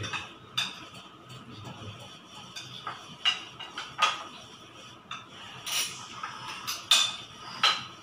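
Plates and bowls clinking and clattering now and then as people eat off them by hand: about half a dozen short, sharp clinks.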